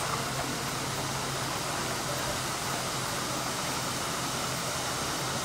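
Steady rushing of a waterfall in spate after heavy rain, a muddy torrent pouring down a rock face, with a faint low hum underneath.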